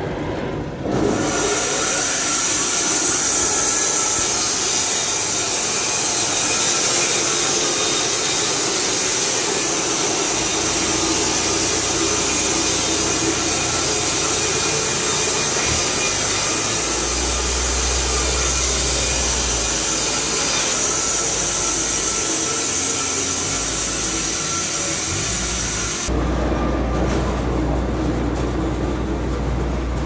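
Carpathian SM 110 band sawmill, run by an 11 kW electric motor, cutting through a log: a steady high sawing hiss starts about a second in and stops about four seconds before the end, leaving the motor and the sawhead running on.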